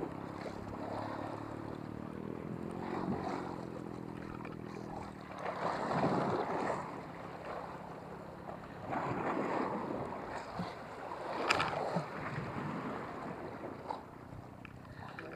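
Small waves washing and splashing against the rocky shore in repeated surges, with wind on the microphone. For the first few seconds a boat engine drones steadily, then fades out. There is a single sharp click about three-quarters of the way through.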